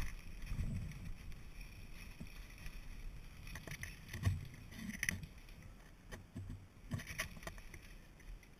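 Rustling and low bumping of gear and brush as a player moves through thick undergrowth, with scattered sharp clicks and knocks.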